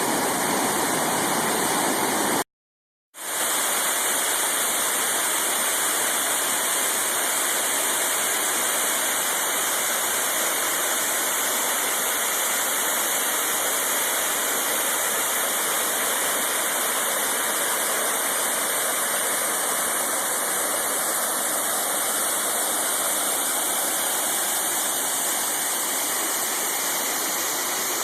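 Steady rush of falling water from a river and waterfall. It cuts out for about half a second near the start and resumes as a slightly thinner, hissier rush from another falls, Madison Creek Falls.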